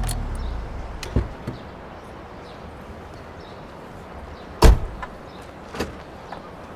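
A low engine rumble fades out at the start. It is followed by a few sharp knocks and one loud thump, like a door shutting, about four and a half seconds in.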